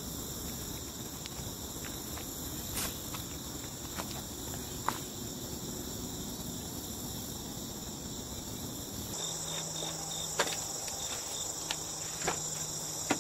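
Steady high-pitched chorus of insects trilling, with a few faint clicks and a low hum joining about nine seconds in.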